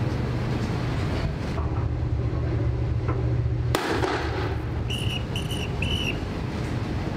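Wind and a steady low shipboard rumble, then a single sharp crack a little past halfway through, the line-throwing rifle firing a messenger line across to the replenishment tanker. Three short high beeps follow in quick succession.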